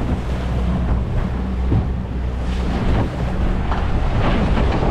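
Boat motor running steadily at trolling speed, a constant low hum, with wind buffeting the microphone and water splashing around the boat.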